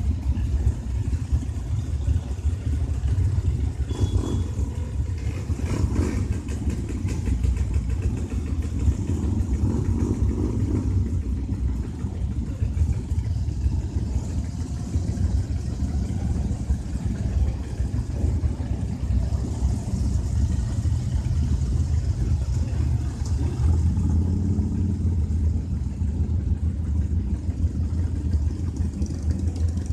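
Many motorcycle engines, including big V-twins, idling together in a steady, dense low running sound, with the odd throttle blip.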